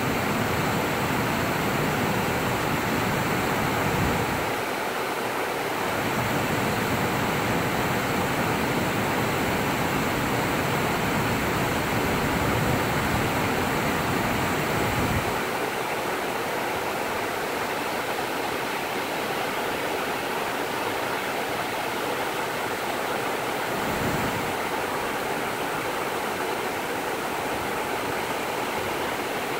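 Water rushing steadily over a row of low, stepped rock ledges: a broad cascade of small falls across a shallow river.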